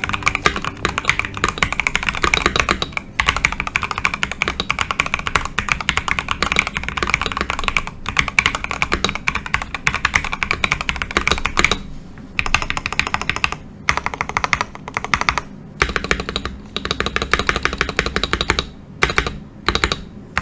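Typing sound test on a NextTime X75 gasket-mounted mechanical keyboard with Gateron Oil King linear switches and PBT double-shot keycaps, tape-modded with two layers of tape over the PCB. A fast, dense run of key clacks, broken by several short pauses.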